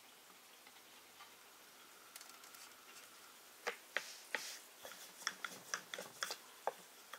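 Faint outdoor background, then a scatter of sharp, irregular ticks and taps from about three and a half seconds in, roughly two or three a second.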